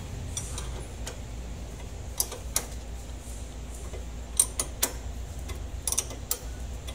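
Sharp, irregular metal clicks of a wrench being fitted to and turning the upper mounting nut of a Toyota Hiace front shock absorber, over a steady low hum.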